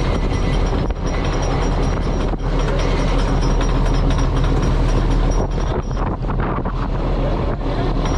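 Fishing trawler's engine running steadily, a constant low hum under a dense rushing noise, with a few faint knocks.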